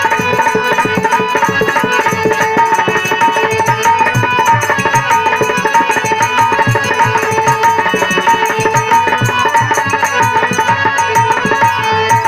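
Instrumental interlude of Bhojpuri Biraha folk music: fast tabla or dholak strokes under steady held melodic tones, such as a harmonium's.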